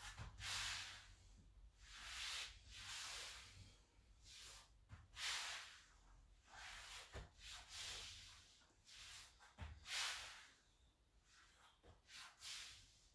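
A man breathing in and out through a mobility stretch, soft noisy breaths coming one every second or two, with a few faint knocks.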